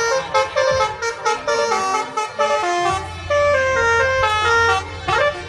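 Basuri telolet horn, a multi-tone electric horn, playing a quick melody of stepped notes. About halfway through the notes lengthen into longer held tones, and a rising swoop comes near the end.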